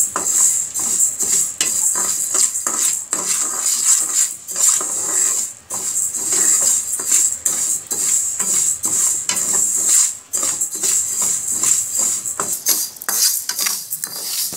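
Dry red lentils being stirred and tossed in a pan with a spatula, a continuous run of quick scrapes and rattles as the dal is dry-roasted on low heat.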